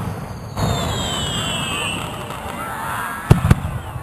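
Fireworks going off: whistling tones that fall in pitch over the first two seconds, then two sharp bangs in quick succession about three seconds in, the loudest sounds.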